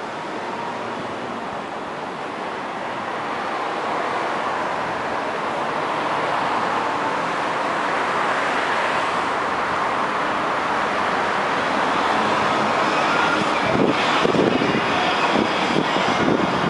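Rushing noise of a passing vehicle that slowly swells louder, with wind buffeting the microphone near the end.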